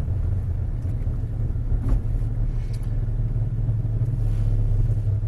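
Chevrolet Camaro engine running steadily at low revs, a low rumble heard from inside the cabin, with a faint click about two seconds in.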